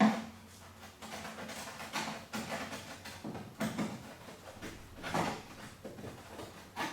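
A sharp knock, then irregular scrapes and clunks of tools and parts being handled while working on a car body.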